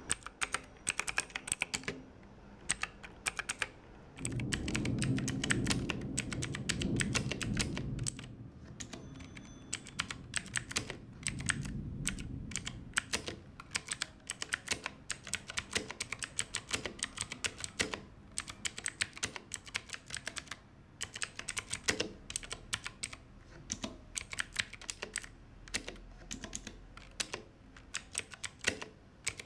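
Fast, irregular typing on a budget mechanical keyboard with clicky blue switches, key after key clacking. A low rumble runs under the typing for a few seconds, from about four to eight seconds in, and briefly again a little later.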